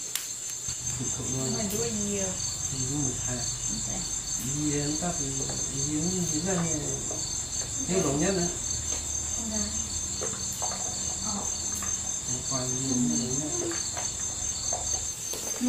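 Crickets chirping in a steady, pulsing high trill throughout. Low, wavering, voice-like sounds come and go underneath.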